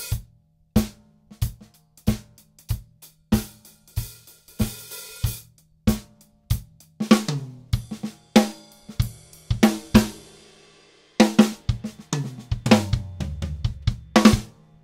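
Acoustic drum kit played in a groove led by the hi-hat, with snare and bass drum: strokes about every 0.6 seconds at first, getting busier after about seven seconds, a brief let-up near ten seconds, then a busier passage with heavy low drums near the end.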